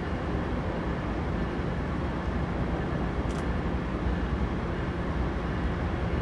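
Diesel freight locomotive approaching, its engine giving a steady low rumble.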